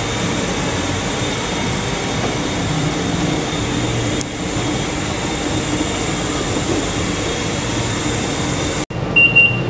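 Dry chemical powder fire-suppression system discharging: a loud, steady rush of gas driving powder out through the pipework, cutting off abruptly near the end. Just after, the fire panel starts beeping in short repeated pulses, the sign that the flow switch has tripped into alarm.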